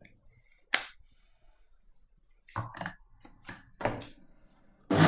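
Steel mixer-grinder jar being handled: a sharp clink of the lid about a second in, then a few knocks and clicks as the jar is set onto the motor base. Right at the end the electric mixer grinder switches on with a loud, steady whirring, the loudest sound here, grinding the wet masala paste.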